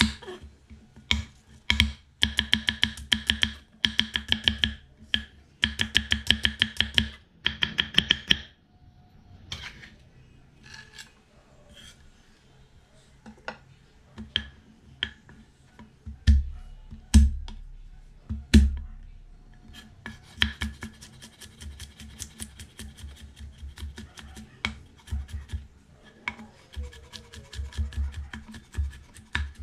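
Kitchen knife chopping on a wooden chopping board: rapid runs of sharp chops for the first eight seconds, then scattered knocks with a few heavier thumps, then lighter quick tapping and scraping of the blade on the board through the last third.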